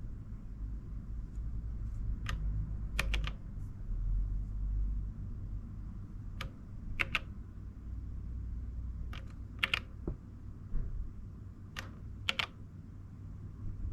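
Button presses on an Elektron Digitakt drum machine: sharp plastic clicks, single or in quick pairs and triples, every second or so, over a steady low hum.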